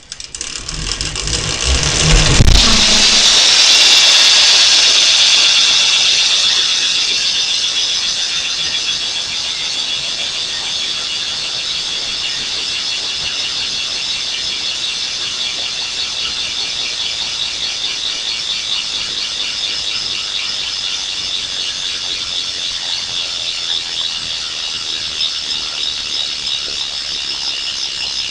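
BMX bike's sealed rear hub freewheeling as the wheel is spun, its pawls ratcheting in a fast, even buzz. The buzz is loudest about three seconds in, eases off over the next few seconds, then runs on steadily.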